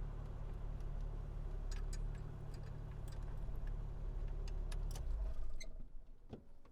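Car engine running with a steady low hum, with scattered sharp clicks over it; the engine sound stops about five seconds in and the sound falls away.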